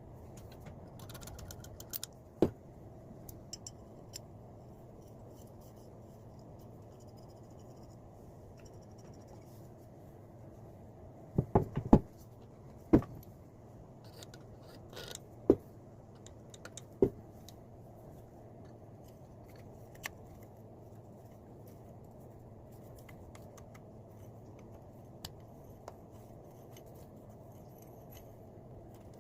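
Metal parts of a Brink and Cotton bench vise clinking and knocking together as it is reassembled by hand: scattered sharp clicks, with a cluster of louder knocks about twelve seconds in.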